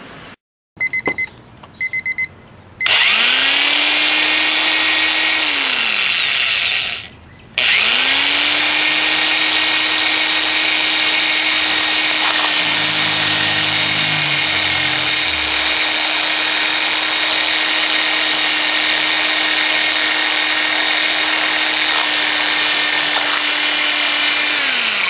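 Two short bursts of rapid, high alarm-clock beeps, then an electric drill spins up and bores into the alarm clock's plastic case. The drill winds down and stops about seven seconds in, restarts, and runs steadily drilling until it winds down near the end.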